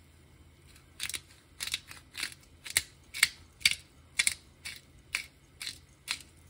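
Pepper mill grinding black pepper: about a dozen short grinding strokes, roughly two a second, starting about a second in.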